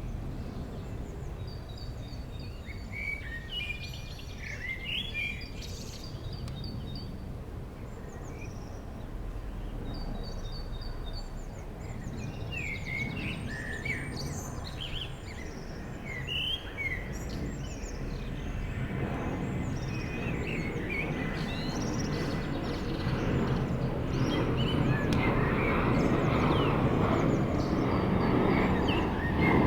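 Songbirds chirping, then from about two-thirds of the way through the rising rumble of a jet airliner on low landing approach, growing steadily louder toward the end as it nears overhead.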